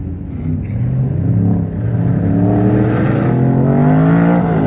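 Race truck's engine on course accelerating hard, its pitch climbing steadily for about three seconds, then starting to drop near the end as it lifts off or passes.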